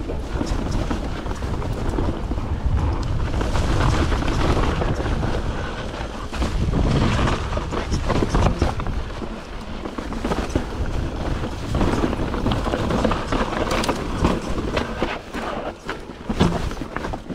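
YT Jeffsy full-suspension mountain bike riding down rocky dirt singletrack: tyres crunching over dirt and rock, and the bike clattering with frequent sharp knocks over bumps, under a steady low rumble of wind buffeting the camera microphone.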